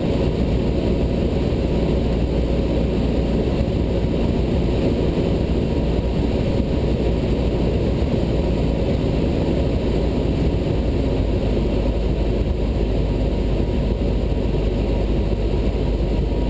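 Cessna 172 Skyhawk's engine and propeller droning steadily, heard from inside the cockpit: a constant low hum that does not change.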